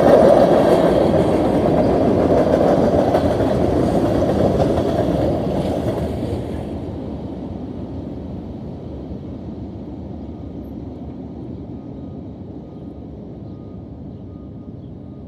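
Freight train's tank cars rolling over a grade crossing, loud at first and dying away from about six seconds in as the last car clears.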